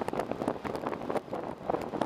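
Ride noise of a moving bus heard from on board: a steady rumble with irregular rattles and wind buffeting the microphone.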